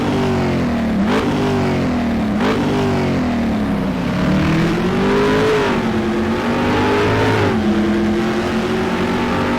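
Car engine accelerating hard: its pitch climbs, drops sharply twice with a short crack at each drop, about one and two and a half seconds in, as at quick upshifts. It then rises and falls more gently.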